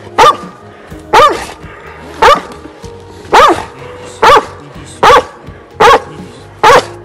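A large Central Asian shepherd dog barking eight times, about once a second, each bark rising then falling in pitch. It is a frightened dog barking at the people closing in on it.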